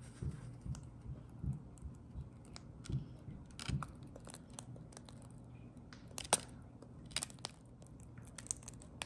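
Faint handling sounds of a plastic piping bag being squeezed to pipe cream into waffle bowls: soft crinkling and light knocks, then scattered small clicks, the sharpest about six seconds in.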